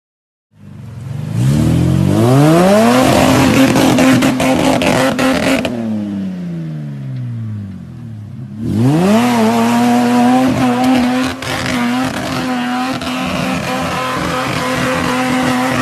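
A 4WD's engine revving hard under load as it climbs a steep dirt bank, wheels spinning in the loose dirt. The revs climb and hold high, drop away for a couple of seconds, then climb again about nine seconds in and stay high. Silent for the first half second.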